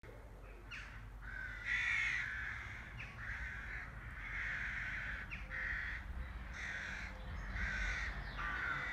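Crows cawing repeatedly outdoors: about nine short, harsh caws spread through the few seconds, some overlapping.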